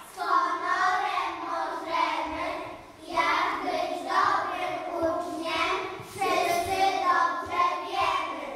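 A group of young children singing together, in three phrases starting about three seconds apart.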